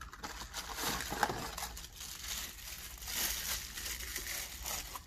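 Clear plastic wrapping crinkling and rustling as a roll of thermal printer tape is handled and unwrapped.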